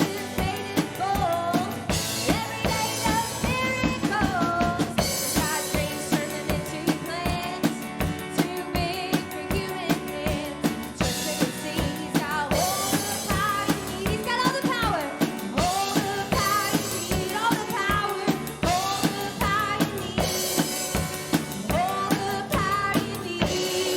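Live praise band playing a worship song: drum kit keeping a steady beat of about two hits a second under sung and instrumental melody lines.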